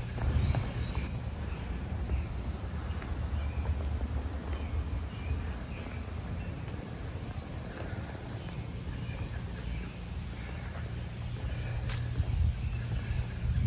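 Outdoor ambience: a steady high-pitched drone of insects over a low, uneven rumble.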